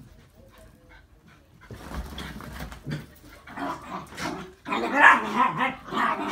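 Two small dogs, a dachshund and a smaller companion, vocalizing in rough bursts as they play-fight. The sound is quiet at first and gets loud from about halfway in.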